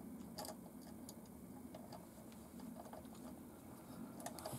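Faint, scattered small clicks of metal parts as an M3 nylock nut is wound by hand onto a shock-absorber bolt through the mounting bracket of an RC truck, with a few clicks close together near the end.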